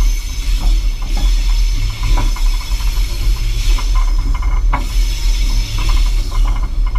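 Diesel locomotive running at low speed: a deep, steady engine rumble with a hiss above it, and irregular clicks and rattles from the wheels and running gear on the track.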